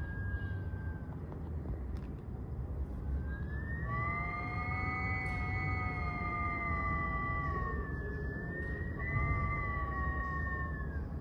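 Wind whistling through cracks: a brief high whistle at the start, then a whistle of several tones that rises in about three seconds in, holds with a slight waver, dips, returns and falls away near the end, over a steady low rumble of wind.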